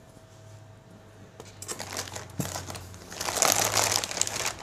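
Clear plastic packaging bag crinkling as it is handled and lifted out of a cardboard box. It starts about a second and a half in and gets louder from about three seconds in.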